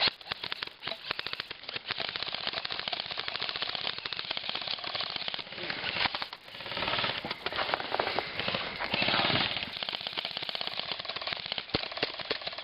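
Airsoft guns firing long rapid bursts, a fast rattle of shots, denser and louder in the second half.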